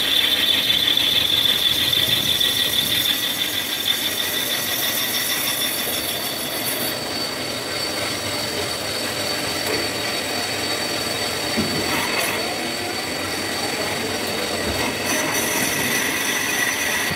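A metal lathe turning a brake disc blank, the cutting tool giving a steady high-pitched screech over the machine's running noise. The shrillest tone fades a few seconds in, and the lathe runs on.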